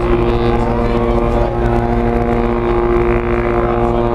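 A Cunard liner's ship horn sounding one long, steady, deep blast.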